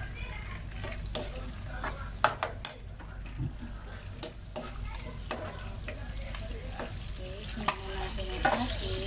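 Onions and tomato frying in hot oil in a nonstick pan, sizzling and spattering, with a spatula stirring and knocking against the pan. Near the end, chicken pieces are tipped into the pan with a couple of sharp knocks, and the sizzle grows louder.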